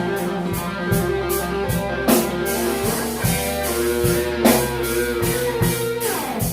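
Live blues band playing a slow blues: an electric guitar fill over drums and bass between sung lines, with a note sliding down near the end.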